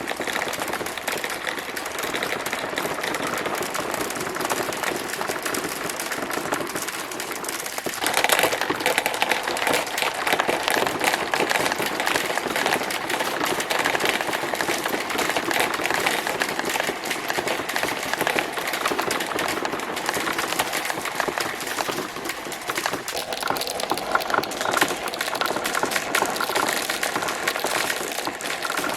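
Many marbles rolling and clattering down a marble run track in a dense, continuous stream of small clicks and rolling noise, growing louder about eight seconds in.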